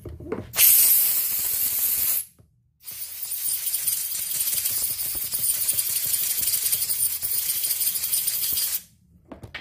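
Compressed-air blow gun hissing in two blasts, a short one of about a second and a half and then a long one of about six seconds, blowing out the passages of a Zenoah G3800 chainsaw carburetor during cleaning.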